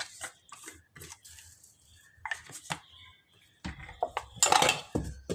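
Scattered clicks and knocks of kitchen utensils being handled, with a louder clatter about four and a half seconds in.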